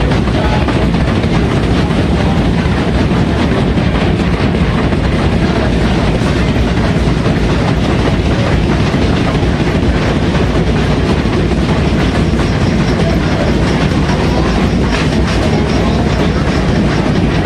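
Steamship machinery in the TSS Earnslaw's boiler room running: a loud, steady mechanical din with a rhythmic clatter through it.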